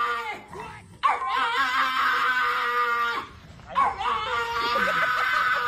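Pug howling with its head raised: two long howls, each wavering at the start, with a short break between them about three seconds in.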